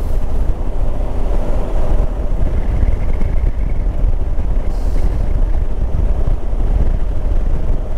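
Motorcycle under way at road speed: the engine running steadily under a heavy, even rush of wind on the microphone.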